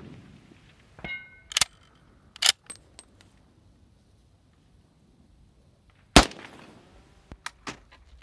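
Swiss K31 rifle firing 7.5×55mm GP11 surplus rounds. About a second in comes a brief ring, likely the steel target being hit, followed by a few sharp metallic clicks. About six seconds in there is a loud rifle shot with a rolling echo.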